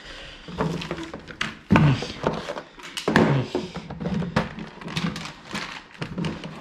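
Small hardware and packaging being handled: a run of irregular clicks and knocks as packs of rack screws are sorted, with a couple of short murmured sounds from the person doing it.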